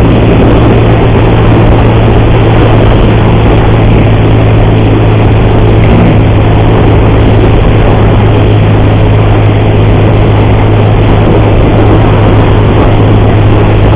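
Motorcycle engine running steadily at a constant pace while riding, with a strong steady low hum under wind and road noise. The rider says the engine's timing chain makes a horrible noise.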